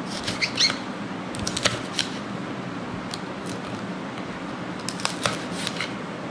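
Kitchen knife slicing green chillies on a wooden cutting board: sharp clicks as the blade strikes the board, coming in uneven bunches, over a steady low background hum.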